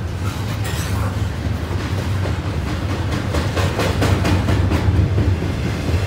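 CN double-stack intermodal freight cars passing close by: a steady low rumble with a run of wheel clacks, busiest about three to five seconds in.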